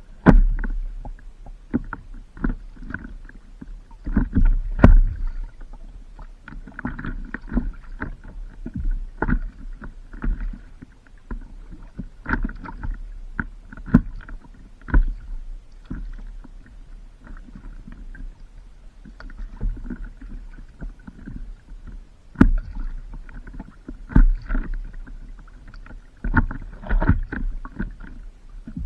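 Water sloshing and slapping against a stand-up paddleboard out on the water, in irregular splashes and knocks.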